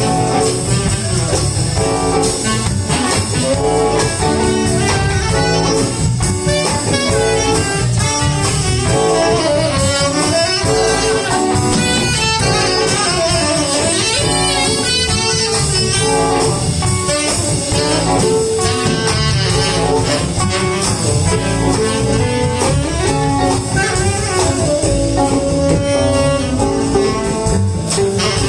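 Live blues band playing an instrumental stretch with a steady drum beat, bass, electric guitars and saxophone.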